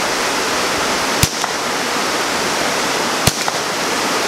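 Two single shots from a Ruger 10/22 .22 LR semi-automatic rifle, about two seconds apart, each a short sharp report, over a steady rushing hiss of rain.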